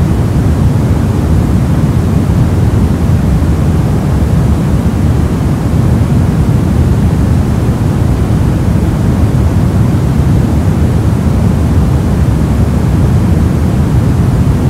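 Steady soft noise, an even hiss weighted toward the low end, with no tones, clicks or changes in level.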